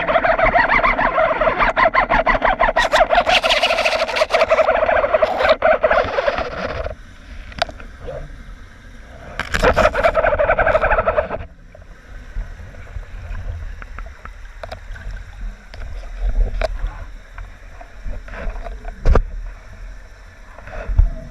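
Water bubbling and gurgling close to the microphone in two loud spells, the first about seven seconds long and the second about two seconds, then quieter water noise with scattered clicks and knocks.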